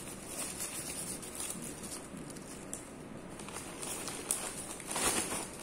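Plastic shopping bags and a zip-top bag rustling and crinkling as vegetables are handled and bagged, loudest about five seconds in.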